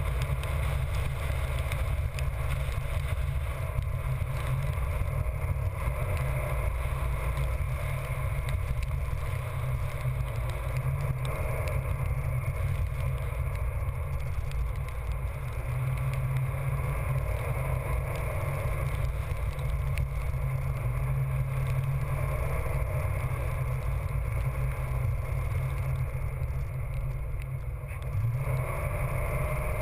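Steady rumble of a car driving at speed, with tyre and wind noise.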